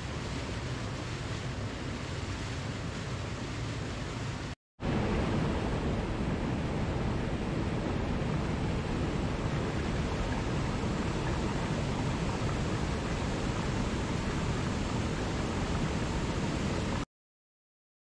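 Rushing water of a mountain stream and waterfall pouring over rocks, a steady even rush. It breaks off for an instant about five seconds in and comes back a little louder, then cuts off suddenly near the end.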